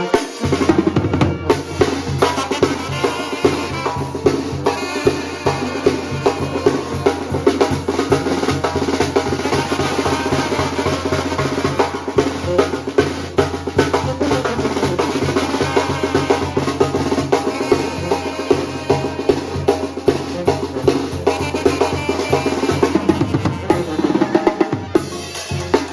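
Mexican banda music, a son from Michoacán: the bass drum and snare keep a steady, busy beat under the brass band.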